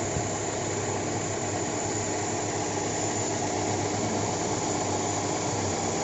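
Toyota Corolla 4A-FE inline-four engine idling steadily while air is bled out of its cooling system through a coolant funnel on the radiator.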